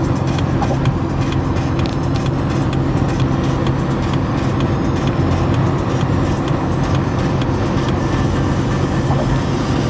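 Steady road and engine noise of a car cruising at highway speed, heard from inside the car.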